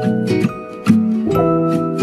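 Instrumental background music with plucked-string notes, new notes struck every fraction of a second over held tones.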